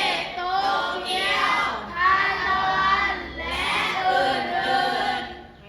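Children singing together in long, held phrases, with a brief break near the end.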